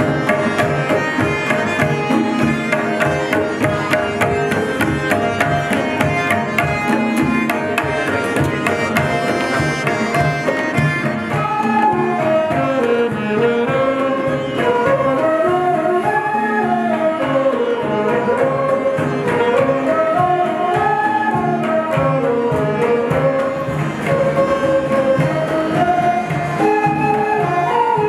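Indian instrumental music: tablas keep a steady rhythm throughout. About eleven seconds in, a winding bansuri (bamboo flute) melody comes in over them.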